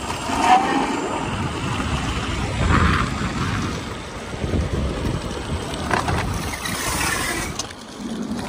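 Segway Ninebot GoKart Pro electric go-kart driving along an asphalt street, heard as a steady rush of wind on the microphone and road noise. It swells louder about half a second in and again around three seconds.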